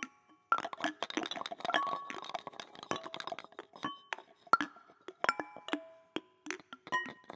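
Handheld found-object instruments (lydes) being tapped and struck in a dense, irregular patter of clicks and clinks, many strikes leaving short ringing tones at different pitches, from several takes layered over one another.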